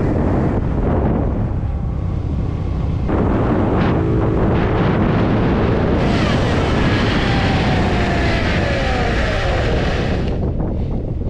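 A 50cc GY6 scooter engine running under way. About six seconds in, a loud, harsh high noise suddenly breaks out of the belt drive and falls in pitch over about four seconds before cutting off: the variator nut has worked loose.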